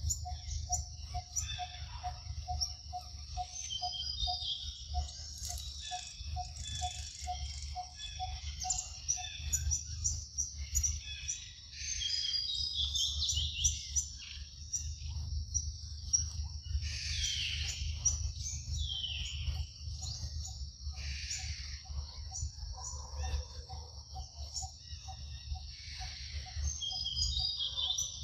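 Forest birds chirping and calling, some calls sliding down in pitch, over a steady high insect drone and a low rumble. For the first nine seconds or so a short note repeats about twice a second.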